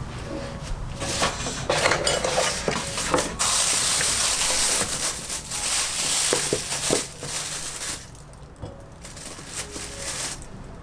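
Kitchen handling noises: light clinks and knocks with rustling. A steady hiss runs for a few seconds in the middle.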